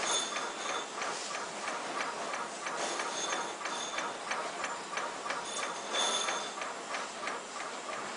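PSL2080 ultrasonic label cutting machine running: a rapid, regular mechanical clicking at about four a second, with a brief high-pitched whine every few seconds.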